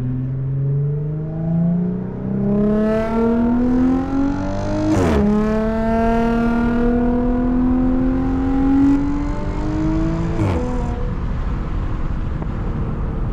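Audi supercharged V6 with an AWE Touring exhaust accelerating hard. The engine pitch climbs steadily, drops sharply at an upshift about five seconds in, climbs again and drops at a second upshift near ten and a half seconds, then settles into cruising.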